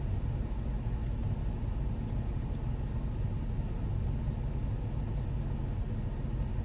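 Jeep Wrangler JKU idling with the air conditioner running, a steady low rumble with no changes.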